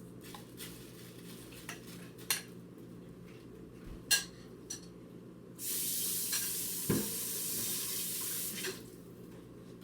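Dishes and utensils being moved around during kitchen clean-up: scattered clinks and knocks, one louder knock about four seconds in. A steady hiss starts suddenly past the middle and stops about three seconds later.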